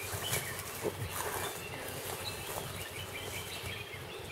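Asian elephant browsing in undergrowth: scattered rustles and crackles of leaves and twigs, with faint bird chirps.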